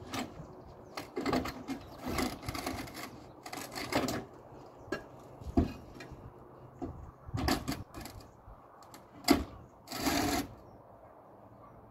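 Roof tiles being lifted off and handled on a roof: an irregular series of clinks, knocks and short scrapes, with a couple of sharper knocks and a longer scrape near the end.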